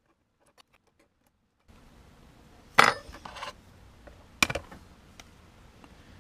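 Small metal tools and iPhone parts handled on a workbench: a sharp metallic clink about three seconds in and another about a second and a half later, with a few lighter ticks, over a faint steady hiss that comes in about two seconds in.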